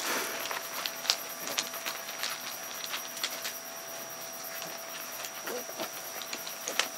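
Scattered light clicks and scuffs of Australian Terrier puppies' paws on gravel and stone, over a faint steady high-pitched tone.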